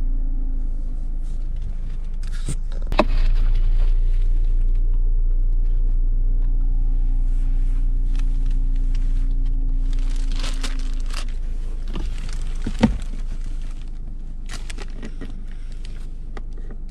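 Toyota Corolla Touring's engine idling, a steady low rumble heard from inside the cabin, with a few clicks and knocks from the interior being handled; the sharpest come about three seconds in and again about thirteen seconds in.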